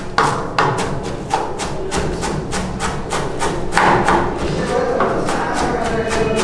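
Fast, steady knife chopping on a cutting board, about three strokes a second.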